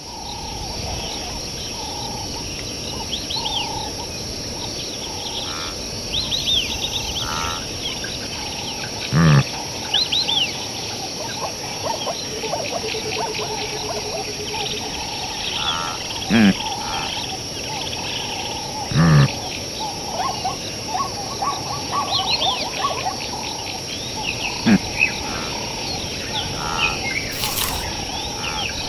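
Savanna nature ambience: a steady high insect drone with many small bird chirps over it. A few short, low animal-like sounds stand out, the loudest about nine and nineteen seconds in.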